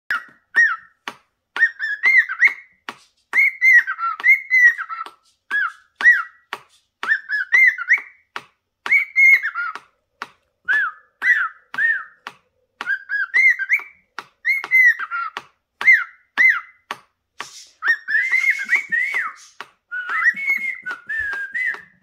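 Cockatiel singing: phrase after phrase of short, arching whistled notes, broken up by sharp clicks.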